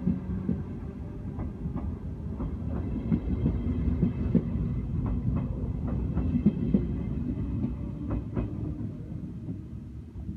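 SBB double-deck passenger train running past at close range: a steady low rumble and hum, with the wheels clacking over rail joints. It fades near the end as the last coach goes by.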